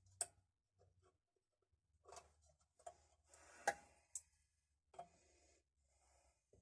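Faint, scattered clicks and light rustling of small tools and parts being handled during wiring work on a machine, with a sharper click a little past halfway.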